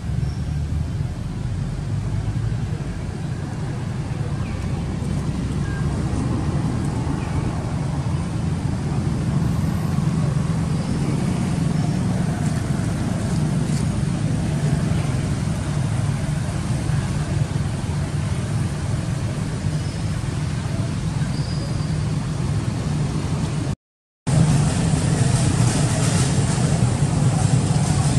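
Steady low rumbling background noise, broken by a brief dropout about 24 seconds in.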